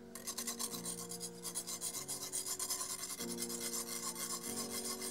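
A utensil scraping rapidly back and forth across the bottom of a small ceramic-coated frying pan, stirring milk powder, sugar and water into a sauce as it simmers and thickens. The scraping comes in a fast, even rhythm of several strokes a second.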